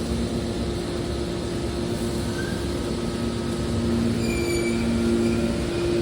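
Hydraulic scrap metal baler running, its power unit humming steadily, with brief high squeals about four seconds in and again near the end.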